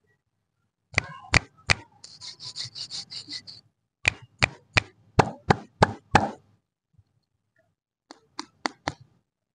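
A series of sharp knocks and pops: three strikes, then a fast run of about a dozen softer rattling pulses, then seven evenly spaced knocks about three a second, and a few fainter clicks near the end.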